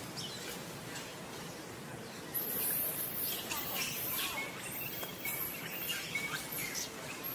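Outdoor forest ambience: high chirping calls over a steady background hiss, with a bright, very high shrill band coming in about two seconds in and flickering on.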